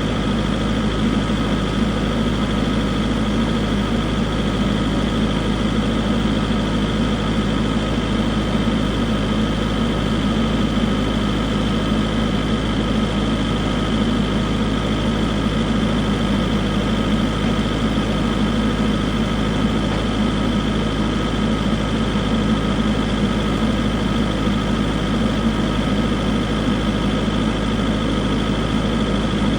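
SANY SY95 excavator's diesel engine running at a steady speed, an even drone with a constant whine over it and no revving.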